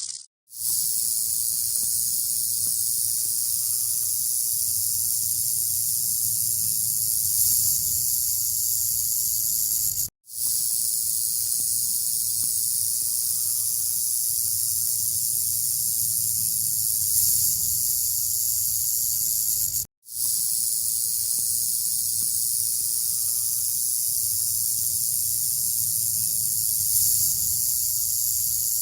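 Rattlesnake rattling its tail: a steady, high-pitched dry buzz, broken by brief silences about every ten seconds.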